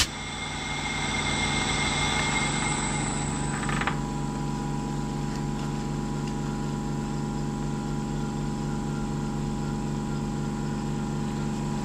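Bridgeport milling machine running steadily, its spindle motor giving a steady hum. A brighter, hissing layer over the hum stops abruptly about four seconds in, leaving the motor running on its own.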